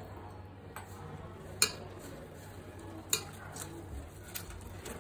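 A spoon stirring wet masala paste in a stainless steel bowl, with a few sharp clinks of metal against the bowl, the loudest about one and a half and three seconds in.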